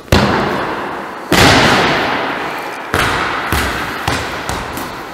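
Volleyball struck with the hand in an underhand serve, then thudding onto the gym floor about a second later and bouncing again a second and a half after that, followed by a few smaller bounces. Each impact rings on in the hall's echo.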